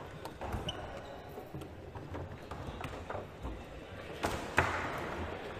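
Leonhart foosball table in play: scattered sharp knocks of the ball being struck by the players' figures and rods, with one much louder sharp crack a little past halfway through.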